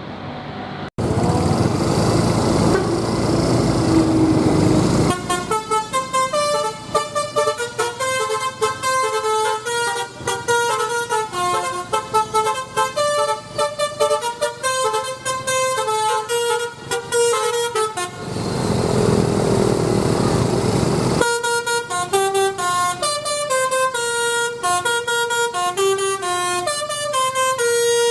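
A bus's basuri 'telolet' horn, a multi-tone air horn, playing a quick melody of stepping notes in two long runs. A loud rushing noise fills the opening seconds and the short break between the runs.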